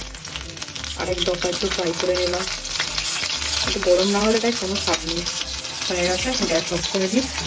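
Food frying in hot oil in a pan, a steady sizzling hiss. A wavering pitched sound, voice-like, comes and goes three times over it.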